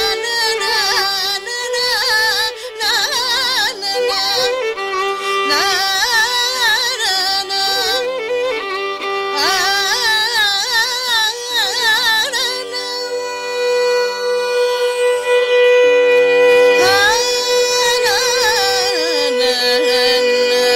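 Carnatic classical music in raga Shankarabharanam: a woman's voice with violin accompaniment, singing richly ornamented, gliding phrases over a steady drone. Partway through, a long held note, followed by a rising glide.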